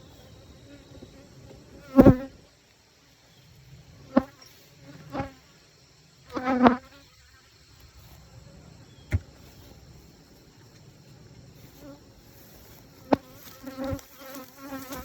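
Honeybees buzzing around an open hive. Individual bees fly close past in short, loud buzzing passes, the loudest about two seconds in and again around six and a half seconds. A few sharp knocks come in between.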